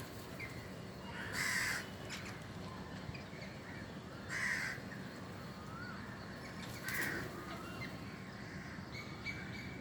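A bird gives three harsh, raspy calls a few seconds apart, each about half a second long, with faint short chirps in between.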